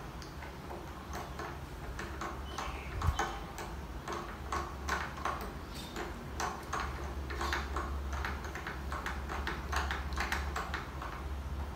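12-string guitar tuning peg being turned by hand to wind on a new string: a run of irregular light ticks and clicks over a low steady hum.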